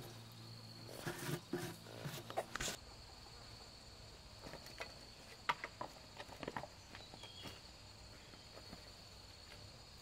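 An insect trills steadily on one high thin note. Rustling and sharp knocks of someone working in the undergrowth fill the first three seconds, then light scattered footsteps on grass and dirt follow.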